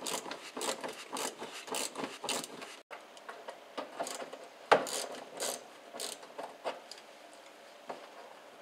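Hand ratchet with a small socket clicking in short irregular strokes as it backs out a sheet-metal screw holding a plastic wheel-housing liner, with one sharper, louder click about halfway through.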